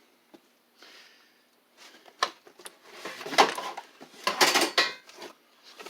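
Metal clinking and scraping of a 12 mm wrench being fitted to and worked on the bolts under a car seat's base, in short irregular bursts that are loudest between about three and five seconds in.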